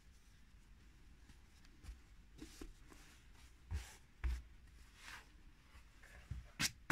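Faint rustling and scratching of hands smoothing and pressing denim fabric onto a cardboard box, with two soft thumps in the middle and a sharper tap near the end.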